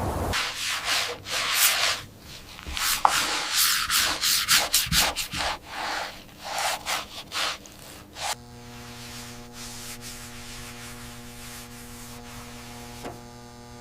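Hand scrubbing of a toy robot's rusty metal with an abrasive, in quick irregular strokes. About eight seconds in, the scrubbing stops and a small electric motor starts humming steadily.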